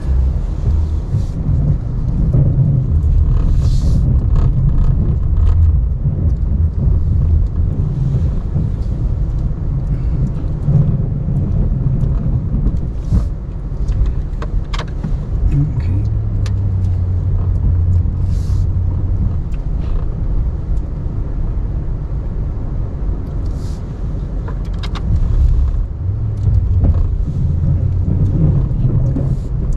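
Ram 1500 Classic pickup's engine running under load as the truck pushes snow with its plow, swelling louder in stretches as it pushes, with scattered clicks and knocks.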